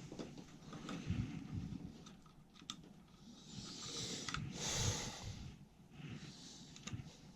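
Faint clicks and handling noises, with a short hiss about four to five seconds in.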